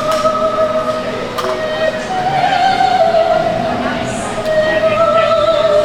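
Operatic singing: a high voice holding long, slightly wavering notes, with music underneath.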